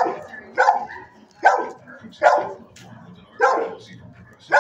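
Dog barking in a shelter kennel, about five sharp single barks roughly a second apart, each trailing off in the room's echo.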